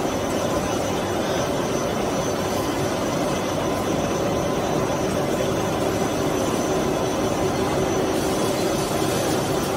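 A row of straight-line wire drawing machines running while they draw stainless steel wire: a steady, even industrial hum with a few constant tones in it.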